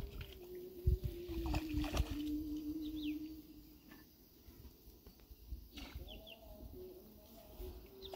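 Outdoor pond-side ambience: a few short, falling bird chirps over a long, low, steady tone that lasts about three seconds, fades, and comes back near the end. A couple of soft low bumps come in the first two seconds.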